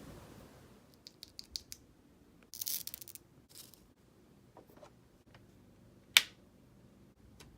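Mechanical keyboard parts being handled during assembly: a quick run of small plastic clicks, a brief scratchy rattle, and one loud sharp snap about six seconds in.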